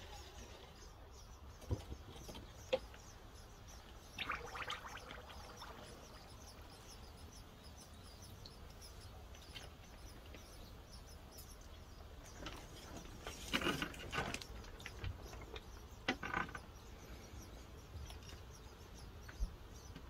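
Faint crackling and sizzling of a red-hot bearing-race steel knife blade being quenched, as it is held and moved in the quench bath. A few short, brighter bursts of crackle come about four seconds in and again around thirteen and sixteen seconds.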